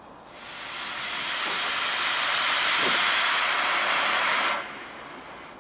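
Kitson & Co 0-6-0 tank steam locomotive letting out a loud, steady hiss of escaping steam. The hiss builds up over about a second, holds, then cuts off sharply near the end.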